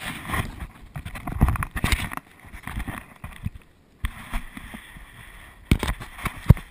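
Water splashing and slapping against a plastic sit-on-top kayak, with irregular knocks on the hull as people shift about on it, and two sharp knocks near the end.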